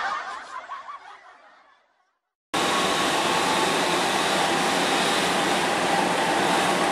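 A wavering editing sound effect fades out, and after about a second of dead silence the sound cuts in suddenly: a KAI diesel locomotive running steadily at a station platform, with a few faint steady tones over it.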